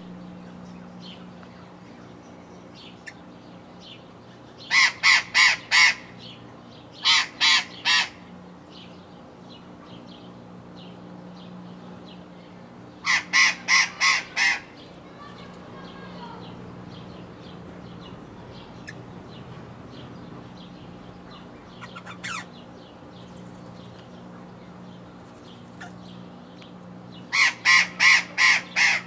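Port Lincoln ringneck parrot calling: loud, harsh, quickly repeated notes in runs of three to six, heard four times. A steady low hum runs underneath.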